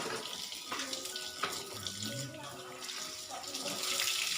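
Water splashing and pouring over a garment as it is rinsed by hand, with the splashing swelling near the end.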